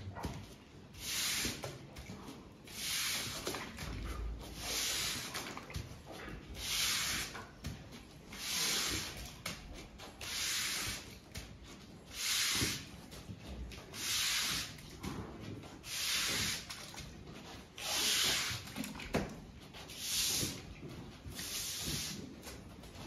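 Stiff broom sweeping wet manure off a concrete barn floor in even strokes, about one scratchy swish every two seconds.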